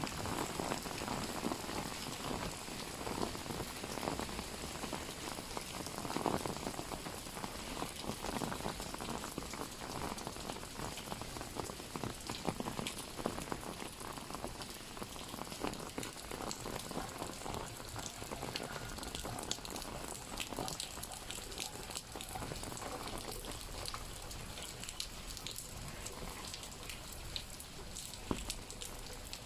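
Rain pattering on an open umbrella overhead: a steady, dense patter of many small drop ticks.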